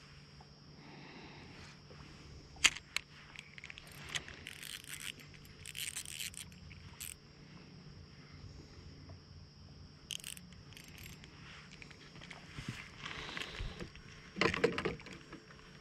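Handling noise from a spinning rod and reel being worked: scattered clicks and short scrapes over a faint steady hum, with one sharp click a few seconds in and a louder scuffle near the end.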